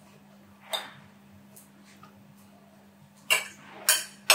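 Sharp clinks of a fork and metal dishware: one about a second in, then three in quick succession near the end, the last the loudest. A low steady hum runs underneath.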